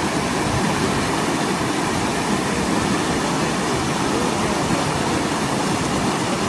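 Canal water rushing fast through a breach in its earthen bank: a loud, steady rushing noise.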